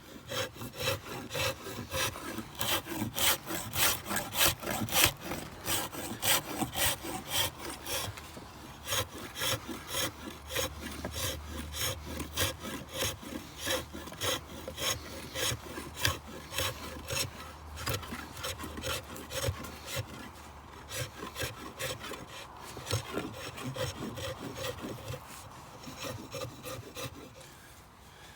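Sharp 90-degree spine edge of an Origin Knives Bushcrafter axe scraping bark off a wooden stick in rapid, repeated strokes, catching now and then on small knots. The scraping stops just before the end.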